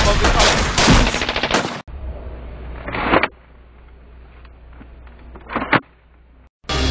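Rapid automatic gunfire, a dense run of shots, cut off abruptly about two seconds in. Quieter, muffled audio follows with a low hum and two short loud bursts, and music starts right at the end.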